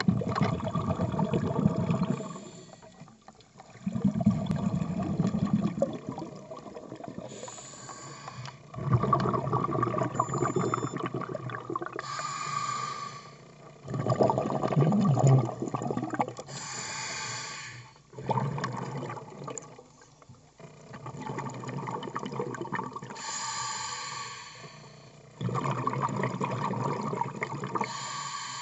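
Muffled water sounds picked up by a camera underwater, surging and fading every two to three seconds, some surges low and churning, others hissy.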